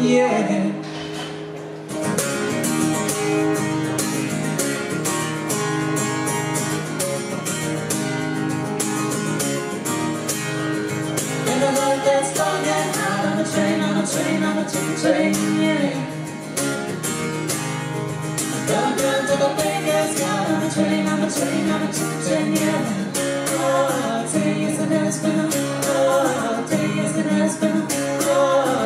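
Live duo playing a song: a woman sings lead and a man sings along, over guitar with a steady rhythmic pulse. The music thins and dips for a moment at the start, and the full rhythm comes back in about two seconds in.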